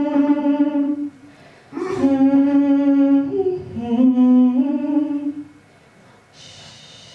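A woman's voice holding long, steady notes into a microphone: one note, a pause of about a second, then a phrase of long notes that step down, briefly up, and back, ending a little past halfway. A faint steady hiss follows near the end.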